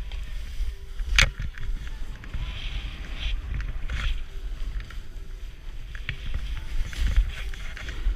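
Snowboard sliding through deep powder snow: a low, uneven rumble with patches of hiss from the snow under the board, and one sharp knock about a second in.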